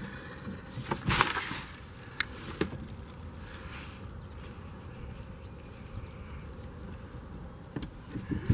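Knocks and clacks from an RV's metal screen door being handled as a cat goes out, the sharpest cluster about a second in, with a few lighter clicks after it and again near the end, over a faint steady background.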